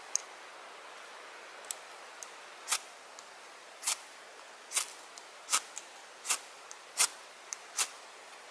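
A ferro rod scraped hard with a metal striker seven times, about one stroke every 0.8 s, starting a little under 3 s in, with lighter clicks between the strokes. The strikes throw sparks onto cotton-wool tinder to light a fire of damp wood.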